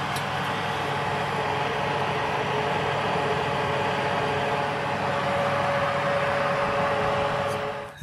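Electric kitchen oven running, a steady hum with a few constant tones, heard up close with the door open. It cuts off abruptly just before the end.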